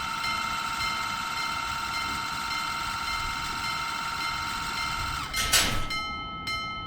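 Japanese level-crossing warning bell ringing in a steady kan-kan rhythm, a little under two strokes a second. A brief whoosh comes about five and a half seconds in, and the ringing then carries on more thinly.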